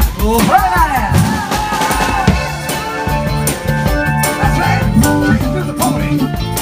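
Live rock band playing: a drum kit keeps a steady beat under bass and keyboard, with gliding, sliding notes in the first second.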